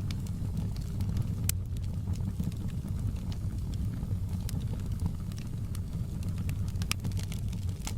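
Wood fire burning in a fireplace: a steady low rumble of flames with irregular crackles and pops, a couple of sharper pops about one and a half and seven seconds in.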